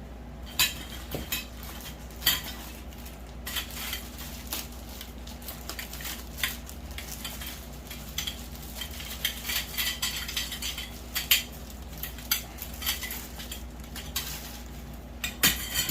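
Grow-tent frame poles and corner connectors knocking and clinking against each other as the poles are handled and pushed into a corner piece. The clicks come in an irregular, rapid run that starts a few seconds in.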